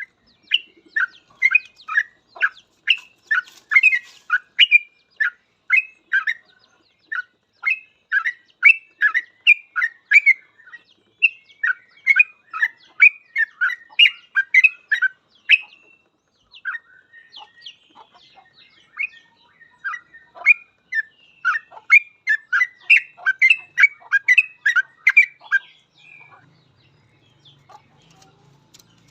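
Yellow-vented bulbul (trucuk) singing in full, rapid runs of short, quick notes, about three or four a second, thinning briefly about halfway and stopping near the end.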